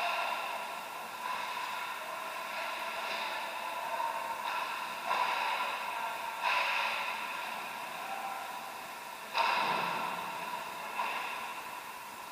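Ice hockey rink ambience: a steady background hum with a run of sudden scrapes and knocks from skates, sticks and puck, each echoing and fading through the arena, the loudest about nine and a half seconds in.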